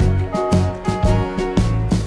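Background music with a steady beat and a moving bass line.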